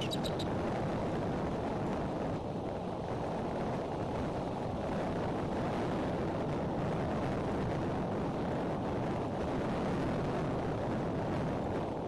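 Strong wind blowing steadily across the outdoor nest-camera microphone, a dense low noise that never lets up. A few quick high chirping notes sound at the very start.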